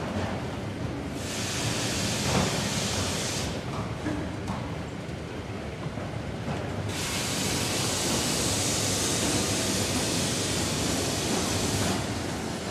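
Factory lamination-line machinery running with a steady low rumble, overlaid by two long stretches of loud hissing: one starting about a second in and lasting around two seconds, the other starting about halfway through and running until near the end.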